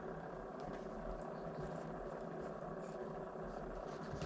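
Steady low background hum with a few faint light clicks.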